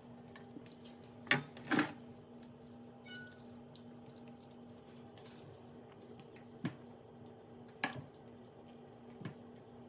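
A few scattered clinks and taps of kitchenware, dishes and utensils, about five in all, over a steady low hum.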